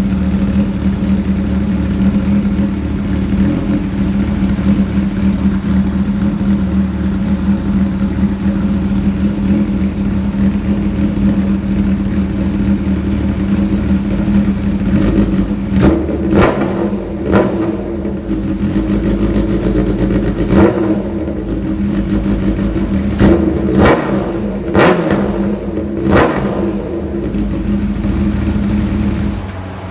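Kawasaki Ninja H2's supercharged inline-four motorcycle engine idling steadily through an Arrow aftermarket exhaust, then revved in a series of short, sharp throttle blips from about halfway through.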